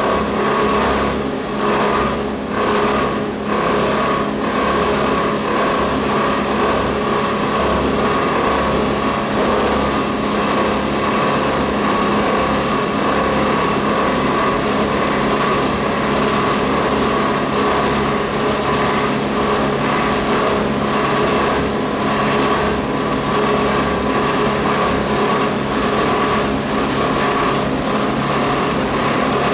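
Plastic film crushing and washing line running: a loud, steady machine drone with several constant tones and a low throb underneath, with a few irregular knocks in the first few seconds.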